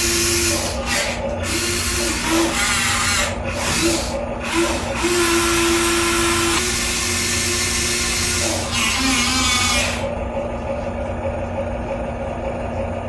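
Excavator engine running steadily, with a strained tone from the hydraulics that comes and goes as the machine works, under a loud rasping, hissing noise that stops about ten seconds in.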